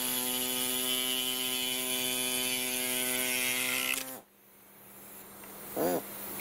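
Soldering gun with a loop tip buzzing steadily while it is drawn along a speaker's plastic frame to cut it, stopping suddenly about four seconds in. A short squeak follows near the end.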